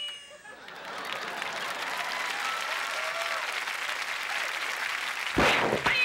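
Audience applauding, swelling over the first second and then holding steady for about four seconds. Near the end a short, loud burst of noise cuts in: a mouth-made sound effect from the performer at the microphone.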